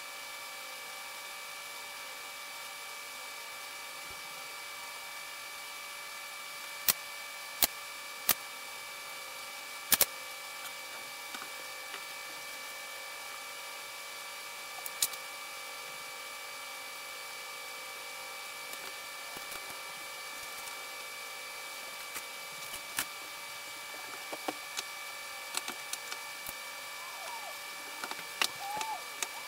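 Sharp, separate knocks and clicks, like wood being set down or tapped: four loud ones close together about a quarter of the way in, another near the middle, and a scatter of smaller ones near the end. Under them runs a steady hum with several fixed tones.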